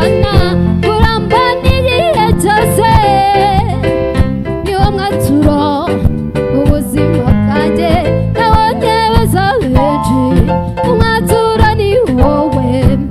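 A woman singing lead into a microphone over live band accompaniment.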